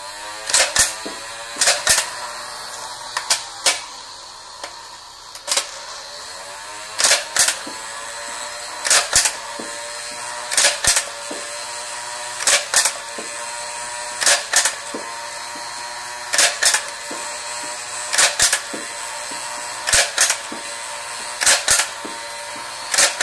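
Nerf N-Strike Barricade RV-10's electric flywheel motors whirring steadily as darts are fired one after another. Each shot is a sharp double click of the trigger and the rotating drum, about every two seconds.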